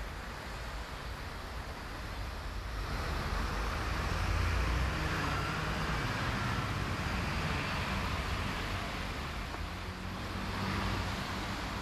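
Road traffic passing: a vehicle's engine and tyre noise swelling about three seconds in and fading slowly, with a second, shorter swell near the end.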